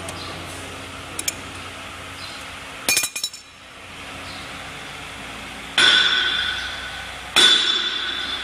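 Metal clinking and a brief rattle as steel parts of a hinge joint fence machine's cross-wire spacing adjuster are worked by hand with a wrench. Then two loud ringing metal strikes, about six and seven and a half seconds in, each ringing on for over a second.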